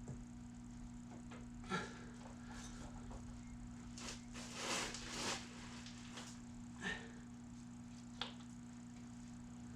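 A few scattered light clicks and short scraping rustles over a steady low hum, as a serpentine belt is worked by hand onto engine pulleys. The belt is a tight fit.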